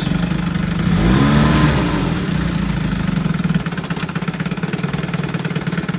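1955 Evinrude Fastwin 15 hp two-cylinder two-stroke outboard running in reverse, revving up and back down about a second in, then dropping to a steady idle about three and a half seconds in.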